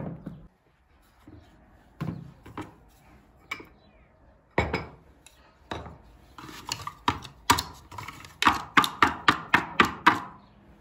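Household objects being handled and set down, making light knocks and clinks, irregular at first and then a quicker run of about three or four a second near the end.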